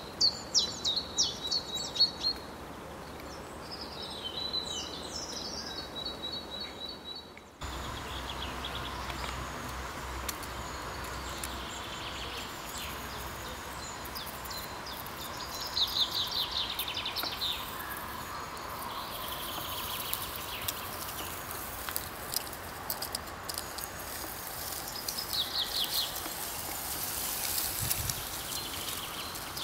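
Outdoor ambience of small birds chirping and trilling at intervals over a steady background hiss. The background changes abruptly about seven and a half seconds in.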